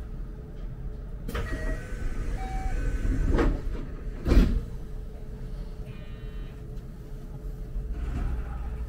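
Electric commuter train stopped at a station: its doors slide shut with two thuds, the second the louder, over the train's low steady rumble. A few short chime-like tones come before the doors, and a brief buzz follows them.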